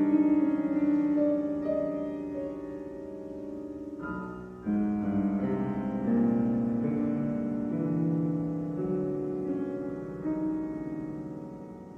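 Grand piano playing a slow, lyrical solo with sustained chords ringing and slowly decaying. After a short dip, a loud new chord is struck a little over a third of the way in. The music fades toward the end.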